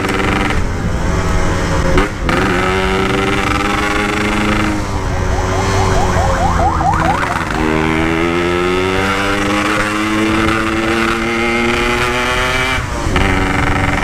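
Yamaha RX-King 135cc two-stroke single on a PK3 exhaust, revving under way. Its pitch climbs with the throttle and dips briefly about two seconds in, around seven seconds and again near the end. It runs on a setting that the rider calls too wet.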